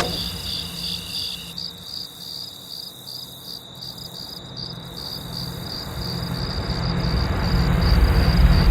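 Chirping crickets, heard as a steady high trill, over a low rumble that grows steadily louder through the second half.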